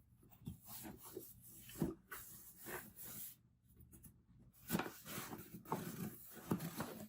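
Cardboard box and packaging being handled and opened: irregular rubbing and scraping of cardboard and paper, with a couple of soft knocks.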